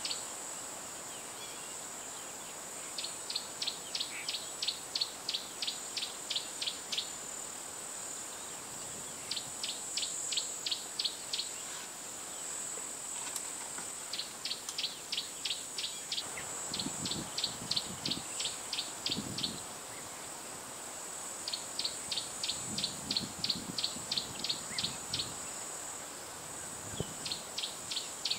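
Bush ambience: a steady high-pitched insect drone, with bouts of sharp chirps, about four a second, lasting two to four seconds and repeating every few seconds.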